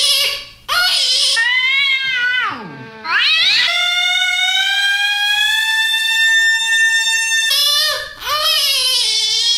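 Cat yowling: wavering high cries, then a cry that falls steeply in pitch and climbs back about three seconds in, then one long held cry that rises slowly and breaks off about seven and a half seconds in, before wavering cries return.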